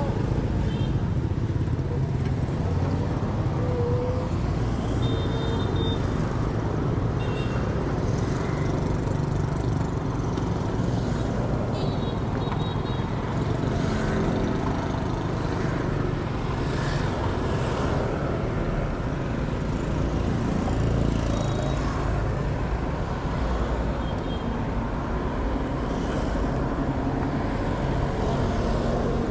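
Steady road traffic noise from a busy street, with vehicles running past continuously.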